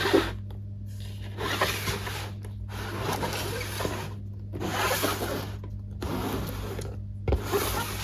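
Toy packaging being unboxed: a run of scraping, rustling strokes about a second each with short pauses between them, over a steady low hum.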